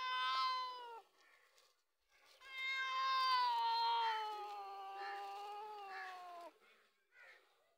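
Cat yowling at a dog in a standoff: a short yowl, then a long drawn-out yowl of about four seconds that slowly falls in pitch, and a brief faint call near the end. A defensive warning yowl.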